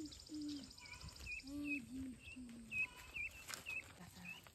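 Guinea keets peeping: short, high, hooked chirps repeated on and off. A fast, high, even trill runs through the first second and a half.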